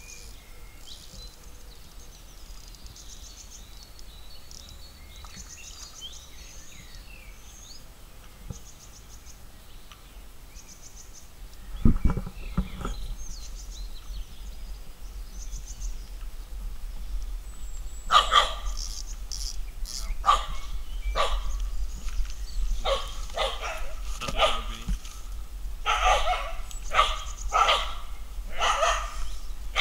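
A dog barking over and over, starting about eighteen seconds in. Before that there are faint bird chirps and a single loud thump about twelve seconds in, followed by a low rumble.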